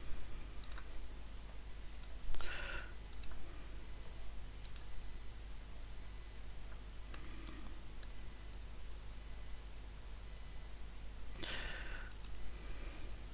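Quiet room tone with a few faint computer mouse clicks and a faint high electronic beep pulsing on and off at an even pace; a breath sounds about two seconds in and again near the end.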